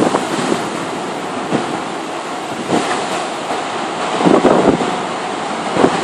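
Wind buffeting the microphone in gusts over the steady rush of storm surf.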